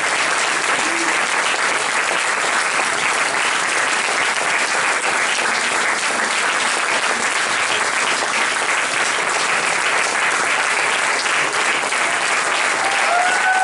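Audience applauding steadily, a dense continuous clapping. Right at the end a few held high notes begin over it.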